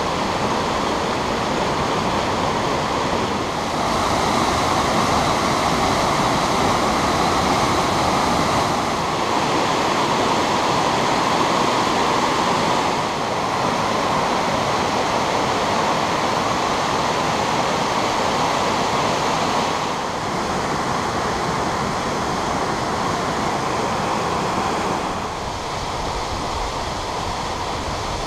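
Mountain waterfall cascading down rock chutes: a steady, loud rush of water. Its level steps up or down suddenly a few times.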